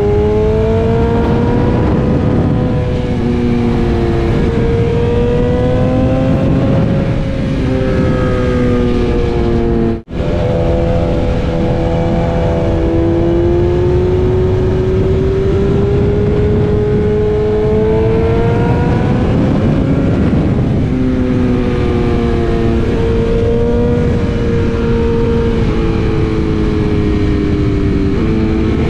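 BMW S1000RR inline-four engine running under way, its pitch rising and falling gently as the throttle is rolled on and off through the bends, with wind rush on the microphone. The sound cuts out for an instant about ten seconds in.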